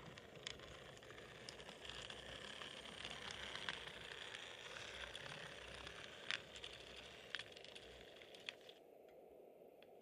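OO gauge model diesel shunter running along the track with a faint, steady motor whir, and about half a dozen sharp clicks as the train rolls by; the whir stops a little before the end.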